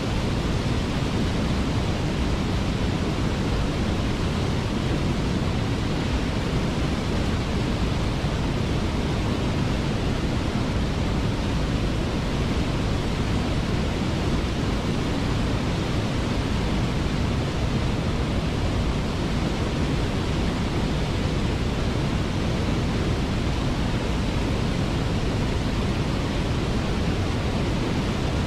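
Waterfall: a steady, even rush of falling water, with no change throughout.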